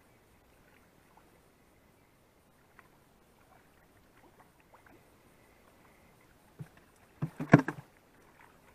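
A hooked bream splashing at the surface as it is drawn in: a short, loud burst of splashes about seven seconds in, after a stretch of faint scattered ticks.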